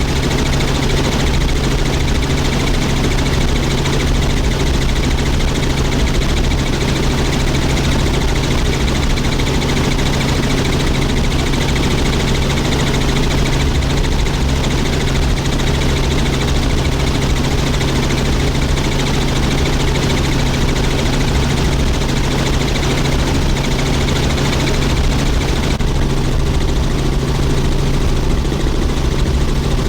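Helicopter in flight, heard from aboard: a loud, steady drone of engine and rotor with a fast low rotor beat underneath.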